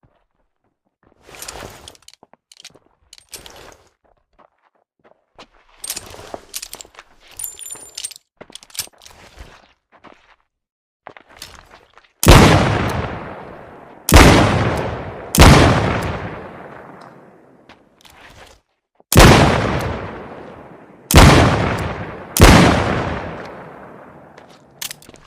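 Smith & Wesson Model 13 .357 Magnum revolver firing six shots, irregularly spaced over about ten seconds, each a sharp crack with a long echoing decay. It is preceded by about twelve seconds of quiet metallic clicks and handling noises.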